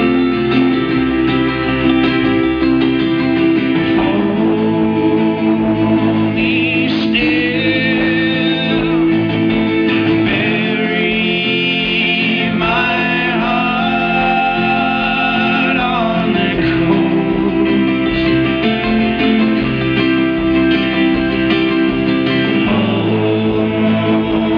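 Live folk-rock band performance: strummed and plucked acoustic guitars playing steadily, with voices singing over them.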